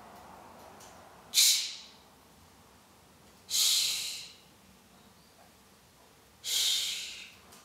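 A woman voicing the phonics sounds 'sh' and 'ch' on their own, without words: three separate hushing hisses about two and a half seconds apart, the first short and sharp, the other two longer.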